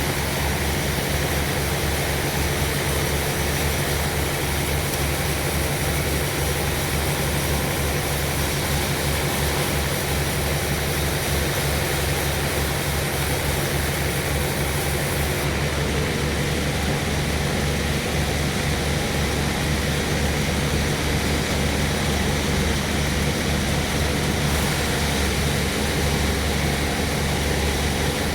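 Sawmill machinery running steadily: a constant low engine hum under a continuous mechanical noise, with no breaks.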